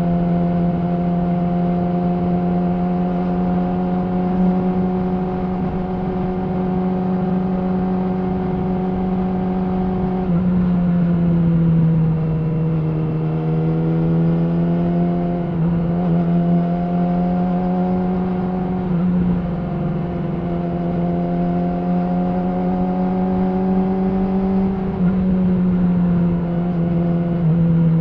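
Yamaha R6's inline-four engine through an Akrapovic slip-on exhaust, running at a steady pitch under way; about ten seconds in the pitch drops as the throttle eases, then climbs back, with another brief dip near the end.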